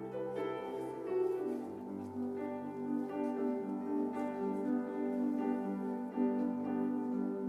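Slow instrumental music on a piano or keyboard, with held chords that change every second or two.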